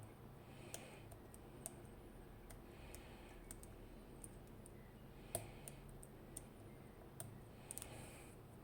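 Faint, scattered clicks of a lock pick working the sliders inside an IMILock slider lock, metal tapping on metal, with one louder click a little over five seconds in.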